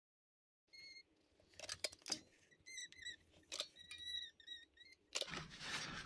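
Caulking gun squeezing out a bead of Liquid Nails Heavy Duty construction adhesive: faint clicks from the gun and several short squeaks as the adhesive is pushed out, starting about a second in.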